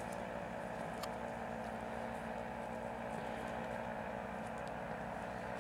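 Faint, steady drone of a powered paraglider's engine in flight.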